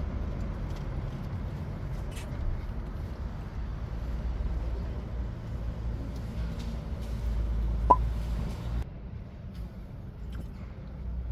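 Low, steady rumble of street traffic heard from a city balcony, easing a little near the end. A single sharp click sounds about eight seconds in.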